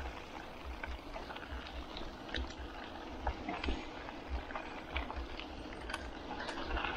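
Mountain bike rolling over a dirt trail: a steady crackle of tyres on loose ground with scattered clicks and rattles from the bike, and wind buffeting the action camera's microphone.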